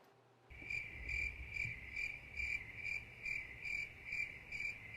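Crickets chirping in an even, steady pulse of about two to three chirps a second, starting half a second in after a moment of dead silence. It sounds like a stock crickets sound effect.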